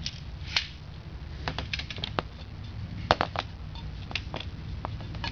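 Steel server rail and its sheet-metal rail-ear bracket clicking and clinking as they are handled and fitted together, in scattered light taps with the loudest cluster a little past halfway. A steady low hum runs underneath.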